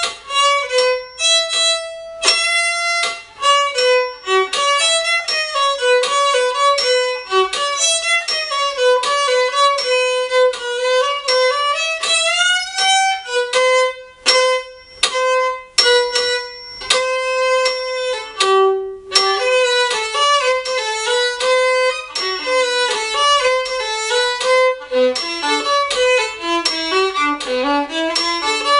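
Solo violin played with the bow: a quick melody of many short notes, with a brief pause about two-thirds of the way through and a turn to lower notes near the end.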